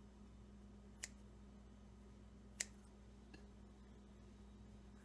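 Kitchen scissors snipping biscuit dough into pieces: two sharp clicks of the blades closing, about a second and a half apart, then a faint third, over a low steady hum.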